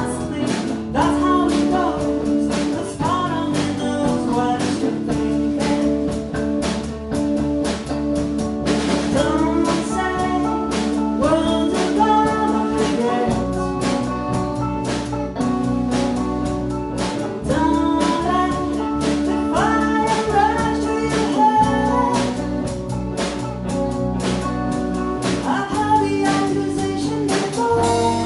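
A band playing a song: a voice singing over guitar and drums with a steady beat.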